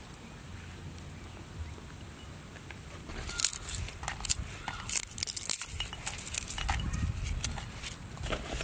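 Garlic cloves dropped by hand into a stone mortar onto chillies, giving a quick, irregular series of light clicks and taps that starts about three seconds in.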